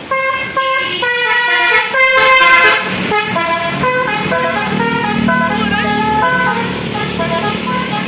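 A bus's multi-tone 'basuri' telolet horn playing a melody, its notes changing every fraction of a second, as the bus passes close by. From about three seconds in, the bus's engine is heard under the horn.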